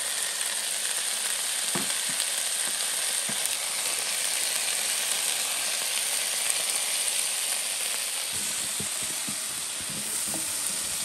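Sliced Korean sweet potatoes and onions sizzling steadily in an electric cook pan. From about eight seconds in, a wooden spatula knocks and scrapes against the pan as the pieces are stirred.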